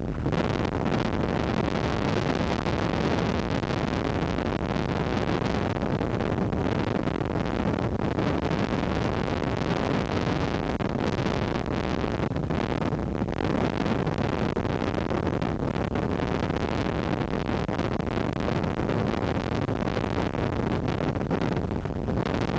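Steady rushing noise at an even level, with no distinct events, tones or rhythm.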